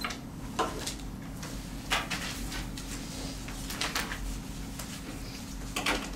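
Papers rustling and small knocks and clatters from objects being handled on a desk, a few separate bursts over a steady low electrical hum.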